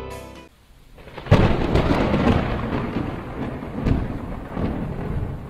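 A sharp thunderclap breaks about a second in and rolls on as rumbling thunder over steady rain. A second swell of thunder comes near the end.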